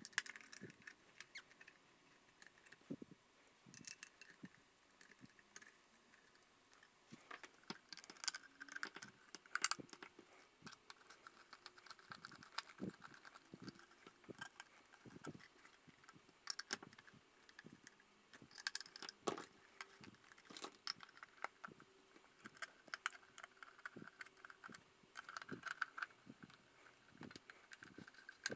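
Faint, scattered small clicks, taps and scrapes of screws and a hand screwdriver against a metal soldering-station case as the back-plate screws are put in and driven by hand.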